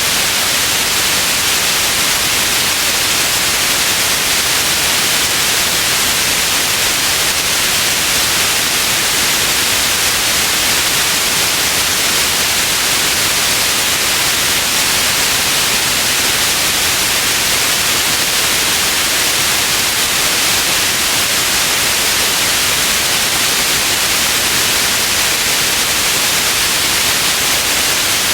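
Steady white noise: an even, unchanging hiss, brightest in the high range, with no breaks or other sounds.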